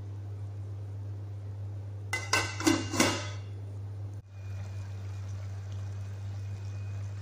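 A flat aluminium lid being set onto an aluminium cooking pot, clanking three or four times with a short metallic ring about two to three seconds in, over a steady low hum.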